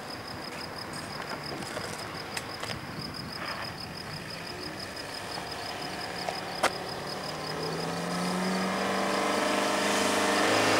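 A van's engine approaching along the road, growing steadily louder and rising in pitch through the second half. A single sharp click about two-thirds of the way through.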